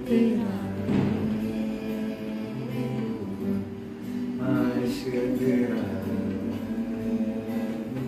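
A man singing with long held notes while strumming an acoustic guitar.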